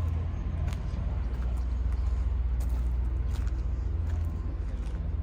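Bobcat S450 skid steer's diesel engine running steadily, with a few light clicks and rattles over it.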